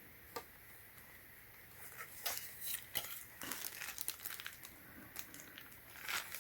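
Plastic packaging crinkling and rustling as a boxed pond pump and its power cord are handled, with small irregular clicks and knocks; it is nearly quiet at first apart from one click, and the rustling starts about two seconds in.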